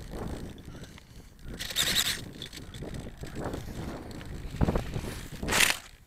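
Gusty wind buffeting a small camera's microphone while it is carried, with clothing and handling rustles. A sharp knock comes near the end, followed by a loud brushing rustle as the camera comes down into long grass.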